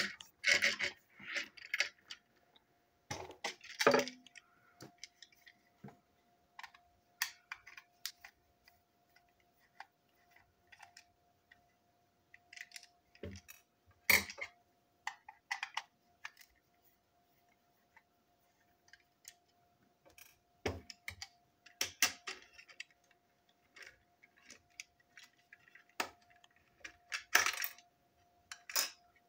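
Small plastic parts of model train brake vans being pulled apart and handled: scattered clicks, snaps and light taps against a tabletop.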